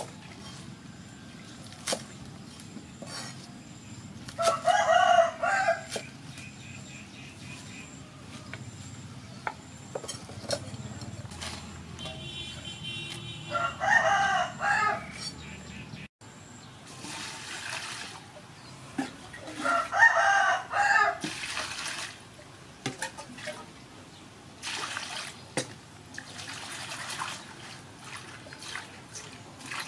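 A rooster crows three times, about five, fourteen and twenty seconds in. Early on there are sharp chops of a cleaver on a wooden chopping board, and in the later part there is splashing and swishing of leafy greens being washed by hand in a basin of water.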